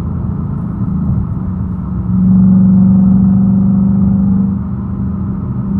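2019 Ford Mustang Bullitt's 5.0-litre V8 engine and exhaust droning steadily while cruising at highway speed, heard from inside the cabin. The drone swells louder about two seconds in and eases back about two and a half seconds later.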